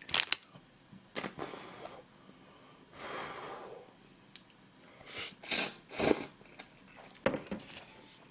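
Close-up eating sounds of a person eating instant ramen: loud short slurps of noodles in the middle, with light clicks of chopsticks against a ceramic bowl.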